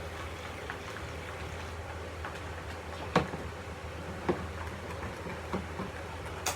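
Hurried slime-mixing at a table: a few sharp knocks and clicks as a mixing pencil and ingredient containers hit bowls, the sharpest about three seconds in, over a steady low hum.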